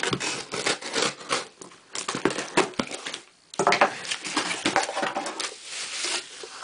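A cardboard shipping box being opened: scissors cutting and tearing the packing tape and plastic wrap, then the flaps folding back and bubble wrap rustling and crackling, with a brief pause about three and a half seconds in.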